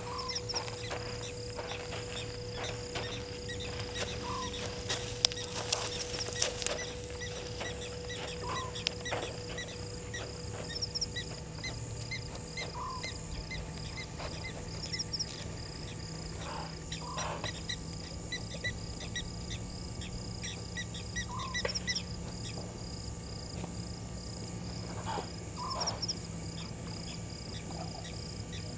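Night bush sounds: insects chirping in steady even pulses, with a short rising call repeated about every four seconds. A run of sharp clicks and crackles comes about a quarter of the way through.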